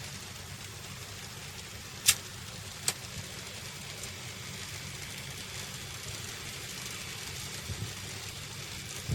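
N gauge model trains running on the layout: a steady low rumble and hiss, broken by two sharp clicks a little under a second apart, about two seconds in.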